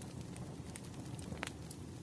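Wood fire crackling: a steady low rumble with scattered sharp pops, the loudest about one and a half seconds in.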